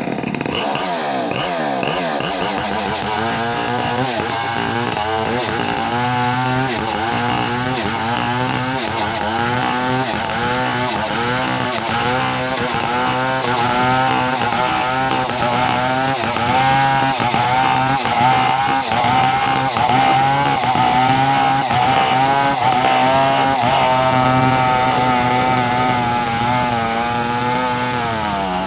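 Two-stroke chainsaw running at high revs, its engine pitch wavering and repeatedly dipping and recovering, then falling off near the end.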